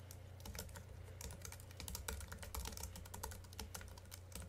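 Typing on a computer keyboard: a quick, uneven run of key clicks, thickest in the middle stretch, over a faint low steady hum.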